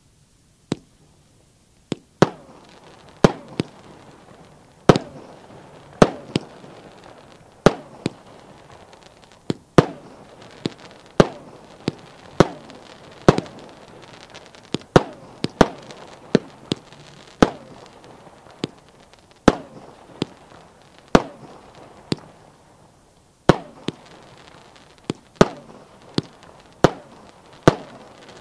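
A Red Baron 'Gigantisches Sternenmeer' 19-shot consumer fireworks battery firing its shells one after another: a string of sharp bangs, roughly one a second, as the shots launch and burst into star bouquets, with a hiss between bangs. There is a brief lull about three-quarters of the way through before the last few shots.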